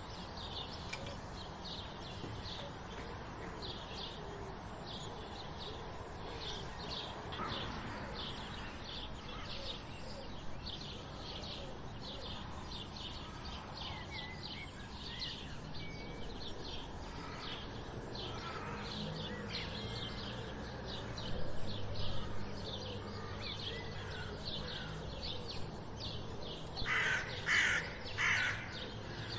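Morning chorus of small birds, sparrows among them, chirping in a quick, steady string of short high notes. About 27 seconds in come three loud harsh calls, the loudest sounds here.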